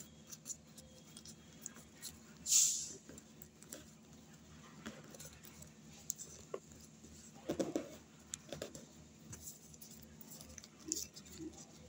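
Paper being folded and creased by hand: soft rustles and small clicks, with one louder sharp swish of paper about two and a half seconds in and a duller bump near eight seconds, over a faint steady hum.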